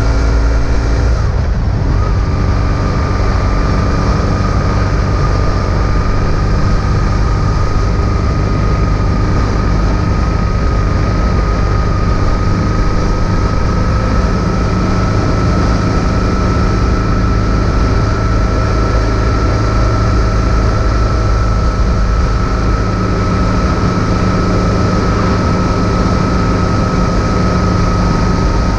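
BMW R1150 GS's flat-twin boxer engine running at a steady cruise, mixed with heavy wind and road noise. The engine note breaks briefly and settles slightly lower about a second and a half in.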